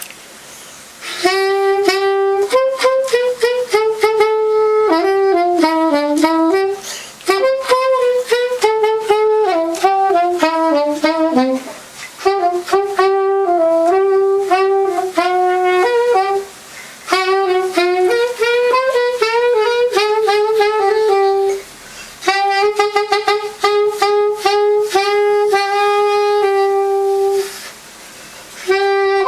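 Solo soprano saxophone playing a melody in phrases of about four to five seconds, each with a brief pause between.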